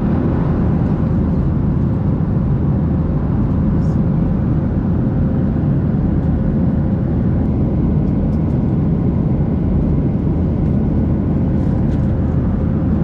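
Boeing 737-900 airliner cabin in flight: a steady low rush of engine and airflow noise with a faint constant hum.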